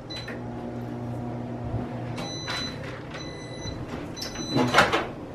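Microwave oven running with a low hum that stops about two seconds in, followed by three high beeps signalling the end of the cooking cycle. Near the end the door is popped open with a sharp clunk.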